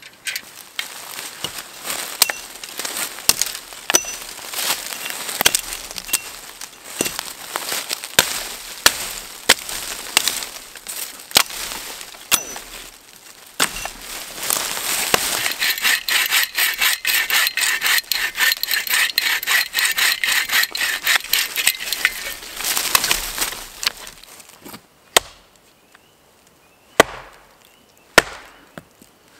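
Hand saw cutting through a dead wooden log: fast, rhythmic rasping strokes, growing denser and louder partway through, then stopping and giving way to a few separate sharp knocks near the end.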